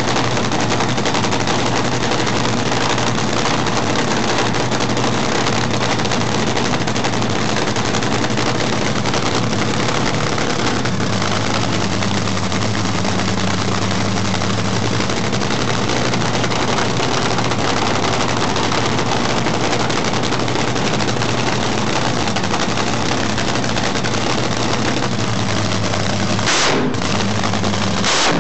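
Top fuel dragster's supercharged nitromethane-burning Hemi V8 running in the pits at its start-up warm-up: a loud, steady, harsh machine-gun-like crackle. Two brief sharper bursts come near the end.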